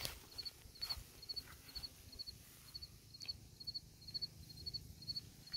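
Faint cricket chirping: short, high chirps of two or three pulses, repeating about twice a second. A few soft rustles of footsteps in dry grass come through in the first part.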